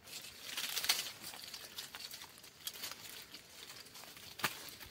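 Bark and wood being scraped and pried off a tree trunk by hand: dry crackling and scratching, loudest in the first second, then scattered small cracks with one sharp snap near the end.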